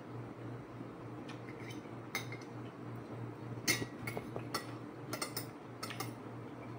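Spoon and fork clinking and scraping against a bowl while eating, with scattered sharp clinks that come more often in the second half, over a steady low hum.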